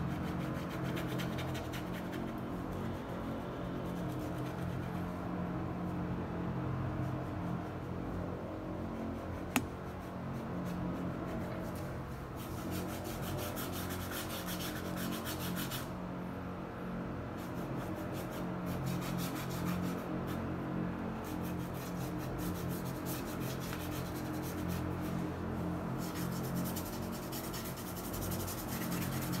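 Paintbrush bristles scratching and rubbing on canvas in many short repeated strokes as acrylic paint is brushed on, with a single sharp click about ten seconds in.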